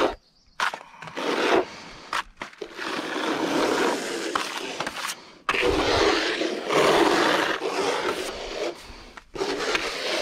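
Wet render being worked across a wall with a hand float, a run of long scraping strokes broken by brief pauses. The longest stroke runs through the second half.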